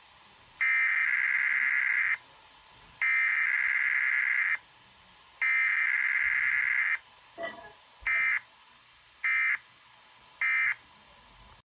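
Emergency Alert System SAME data tones, the harsh digital buzzing of the encoded header sent three times in bursts of about a second and a half, followed by the three short end-of-message bursts. A brief faint sound falls between the two groups.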